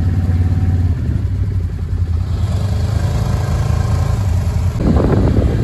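Side-by-side utility vehicle's engine running steadily at low speed while driving along a dirt trail, with a louder noisy rush near the end.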